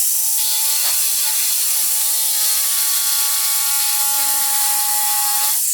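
Electric drill with a larger bit, widening a hole. It runs at a steady speed with a buzzing, chattering pitch as the bit cuts.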